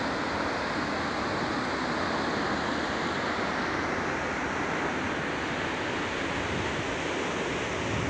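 Steady rushing roar of a distant waterfall, with wind buffeting the microphone.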